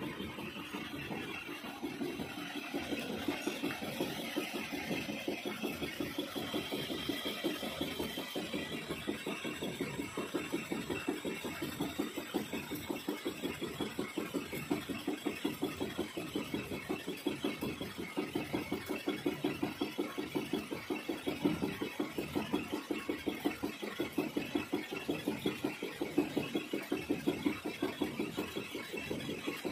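Large engine lathe running, its chuck spinning while a single-point tool faces a metal bevel pinion blank. The cut and machine make a steady, fast, even pulsing.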